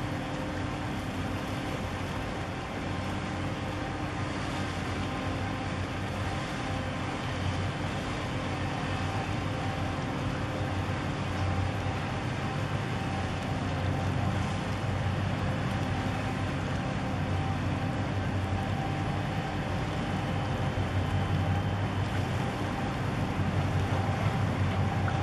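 Steady low engine drone of a vessel under way, a hum of several steady pitches over a wash of noise, growing slightly louder toward the end.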